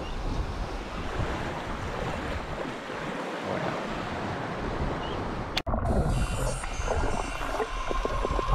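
Wind buffeting the microphone over small waves lapping on a sand cay in shallow water. About five and a half seconds in, the sound cuts off abruptly and a different, muffled sound follows.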